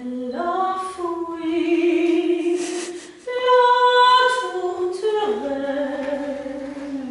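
A woman singing in classical operetta style, holding long notes; the highest and loudest note comes about three seconds in and is held for about a second before she steps back down.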